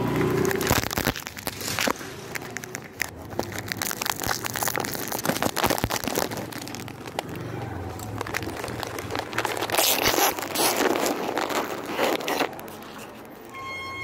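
Biscuits being crushed and broken up by hand: a dense, irregular run of crunching and crackling.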